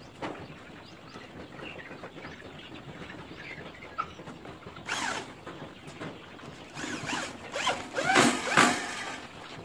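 Corded electric drill driving screws into a metal cage frame in short bursts, one about five seconds in and a louder run of bursts near the end.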